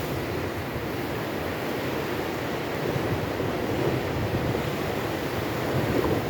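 Storm waves breaking and washing against an embankment, with wind rumbling on the microphone, giving a steady wash of noise.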